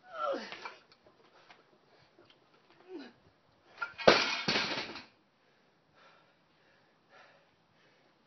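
Two short grunts from a man, each falling in pitch, about three seconds apart, then a loud harsh noise with a sudden start lasting about a second, about four seconds in.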